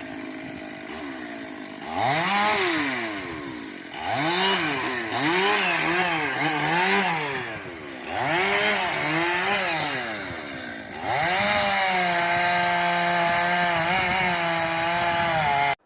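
Chainsaw cutting a tree: the engine is revved up and eased back in several surges, its pitch rising and falling each time, then held at a steady high speed for the last few seconds.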